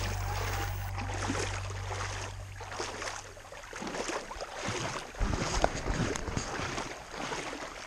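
Outdoor seaside noise: wind buffeting the microphone and waves washing on the beach. Steady low tones, most likely the tail of a music track, fade out about four seconds in. A couple of louder bumps come a little after five seconds.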